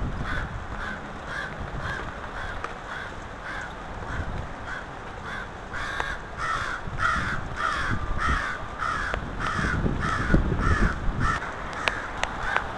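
Crows cawing in a long run of short, evenly spaced caws, about two or three a second, growing louder about halfway through.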